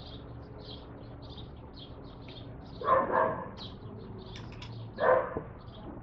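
A dog barking twice, about two seconds apart, over high, quick chirping of small birds that repeats a few times a second.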